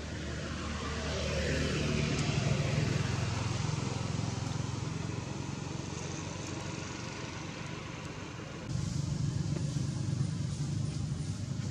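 Low engine rumble of a motor vehicle going by, its pitch falling over the first two seconds and loudest just after. About nine seconds in, the background changes abruptly to a louder steady rumble.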